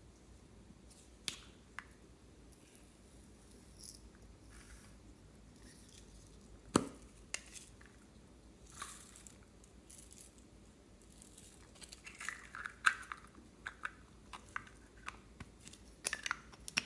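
Slime being squeezed and worked by hand: scattered small wet clicks and squishes, with one sharper click about seven seconds in and busier runs of crackling clicks toward the end.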